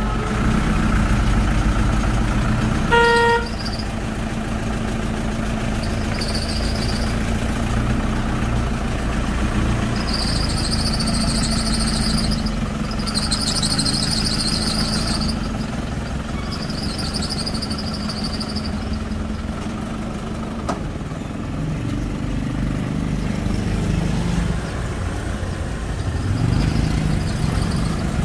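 Light flatbed truck's engine running at a slow crawl with a steady low drone, and one short horn toot about three seconds in. A high-pitched squeal comes and goes several times in the middle.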